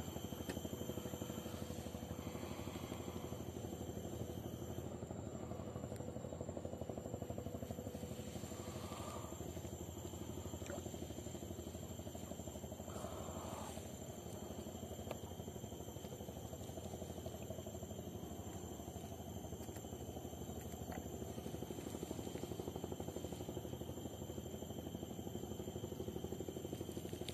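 Steady low drone of a small motor running evenly, with a few faint soft handling sounds over it.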